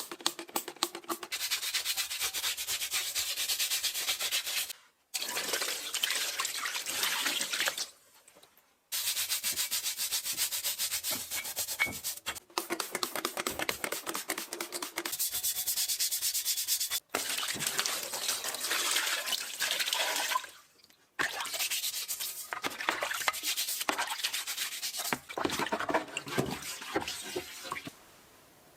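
Rapid back-and-forth abrasive rubbing on a metal part, in several stretches broken by short silent gaps.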